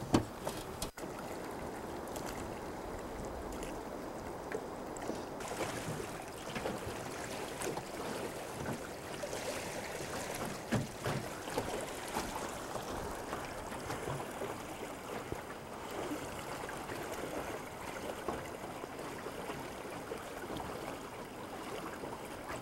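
River water lapping and flowing, a steady even rush with small scattered knocks, and one sharp click right at the start.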